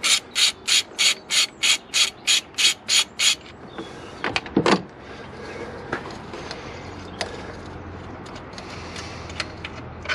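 Ratchet wrench undoing an alternator mounting bolt: about a dozen quick, evenly spaced ratcheting strokes, roughly three a second, over the first three seconds. About a second later comes a short scrape, then a few faint light clicks.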